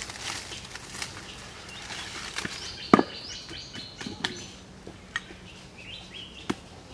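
Footsteps rustling through dry leaf litter, then a few sharp knocks as a machete and a hatchet are laid on a wooden log, the loudest about three seconds in. Birds chirp in the background.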